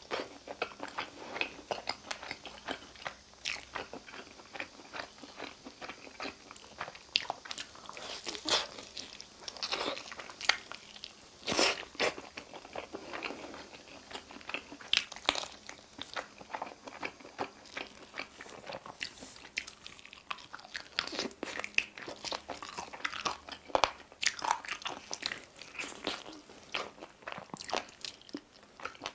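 Biting into and chewing spicy mala-sauced chicken wings and drumsticks, close to the microphone, with irregular sharp crunches and chewing throughout.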